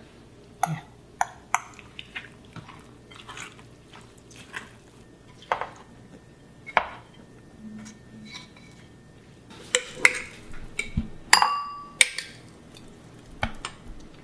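Marinated mushrooms and vegetables being mixed and scraped by hand in a metal bowl: scattered wet squishes and light clinks, then the mix is tipped into a plastic container. Late on, the metal bowl clanks and rings briefly.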